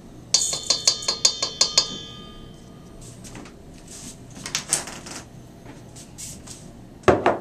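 A plastic measuring spoon tapped quickly about eight times against a stainless steel mixing bowl, each tap setting the bowl ringing, to knock the salt out. Softer handling noises follow, and a single loud knock comes near the end.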